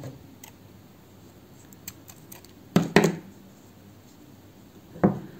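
Scissors snipping through yarn, with sharp clicks of the blades about three seconds in. Faint handling ticks, and a duller knock near the end.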